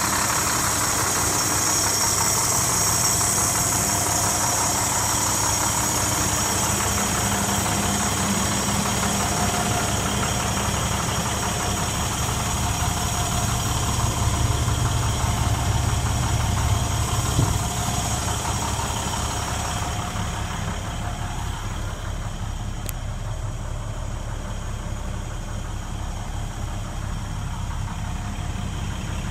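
International 4300's MaxForce DT diesel engine idling steadily. It is loudest and deepest about halfway through, and sounds duller near the end, heard from inside the cab.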